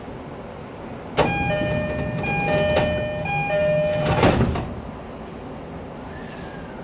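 Door-closing chime of an E531-series train: a two-note electronic chime alternating between a higher and a lower tone for about three seconds, then the sliding doors shut with a thud a little after four seconds in.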